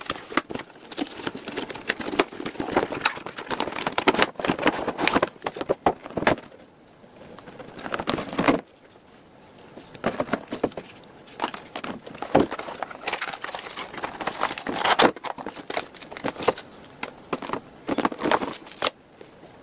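Cardboard box and plastic packaging of a wireless backup camera kit being opened and handled: irregular rustling, crinkling and clicking of the plastic tray and cardboard, with a lull of a few seconds about a third of the way in.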